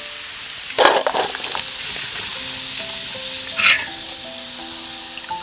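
Hot oil sizzling in a wok around cornstarch-coated Chinese yam pieces as they are scooped out after their first fry, with two louder bursts of sizzle and scraping from the ladle, about a second in and past the middle.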